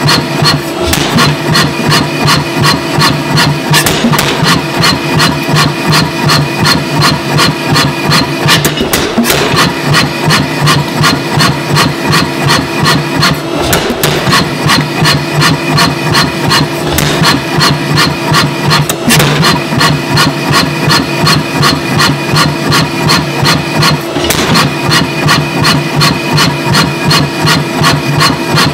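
Power hammer striking a red-hot steel hammer-head billet in a fast, steady rhythm of blows, with a steady machine hum underneath.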